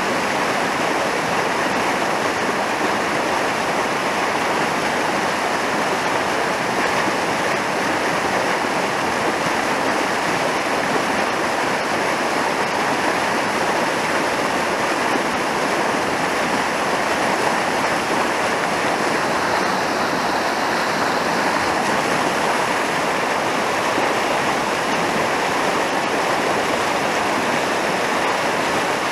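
Fast mountain river rushing over whitewater rapids: a steady, unbroken rush of water.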